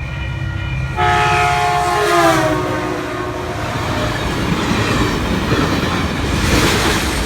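Train horn sounding a held chord about a second in, its pitch dropping as the locomotive goes by. It is followed by the loud rumble and clatter of the train's wheels passing over the crossing.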